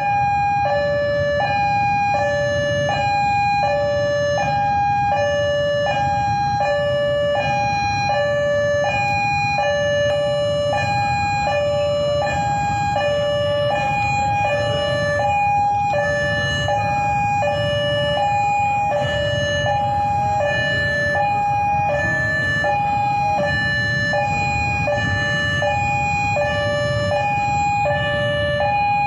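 Railway level-crossing warning signal sounding its two-tone alarm, a high tone and a lower tone alternating without a break about once a cycle per second, over a low rumble.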